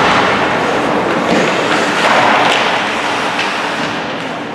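Ice hockey game sounds in an arena: a steady rush of noise with a few sharp knocks of sticks, puck or boards.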